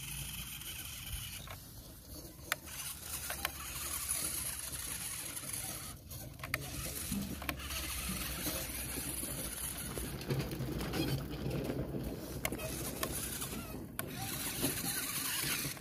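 Small radio-controlled model tractor's electric motor and gearbox whirring steadily as it crawls over gravel, with stones crunching and clicking sharply under its wheels now and then. The sound drops out briefly a few times.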